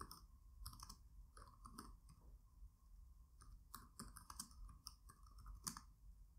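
Faint typing on a computer keyboard: irregular keystroke clicks, a few a second with short pauses between.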